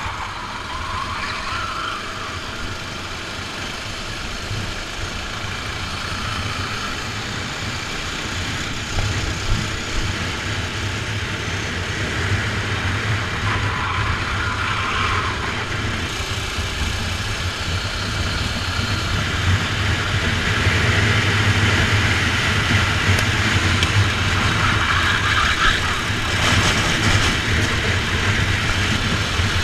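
Rental kart engine running under load through the corners, heard from onboard the kart, with its note rising and falling; it gets somewhat louder in the second half.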